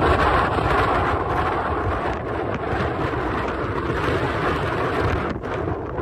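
Strong wind buffeting the microphone with a heavy, uneven rumble, over the steady hiss of ocean surf breaking on the rocks.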